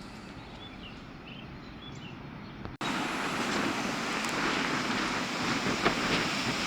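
Steady outdoor storm noise that jumps abruptly about three seconds in to a much louder, even rush of wind and rain.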